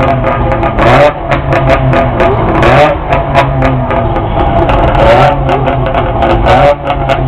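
Several Melkus RS 1000 sports cars with three-cylinder two-stroke engines running and being revved, the pitch rising and falling over a steady low drone, with frequent sharp crackles and pops.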